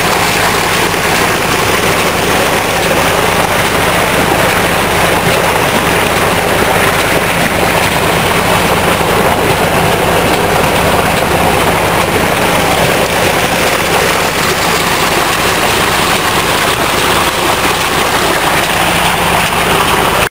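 A motor running steadily: a constant low hum under a loud, even rushing noise.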